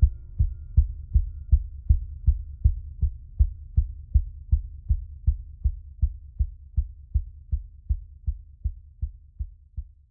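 Background music reduced to a steady low pulsing beat, a little under three beats a second, gradually fading.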